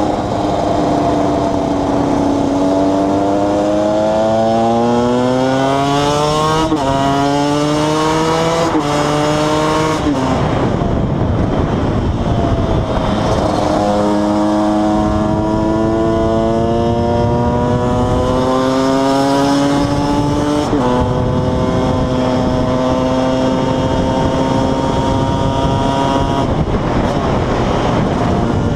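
KTM 125 EXC single-cylinder two-stroke engine pulling up through the gears. The pitch climbs and drops sharply at each of three upshifts in the first ten seconds, then falls as the throttle is closed. It pulls again from about fourteen seconds in, shifts once more about seven seconds later, holds a steady note, and eases off near the end.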